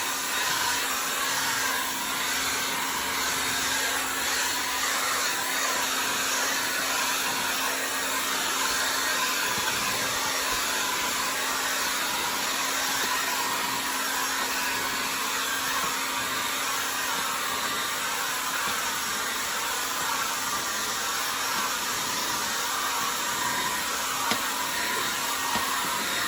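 Handheld blow dryer running steadily: an unbroken rush of blown air with a faint steady hum beneath it, drying moisture off a screen.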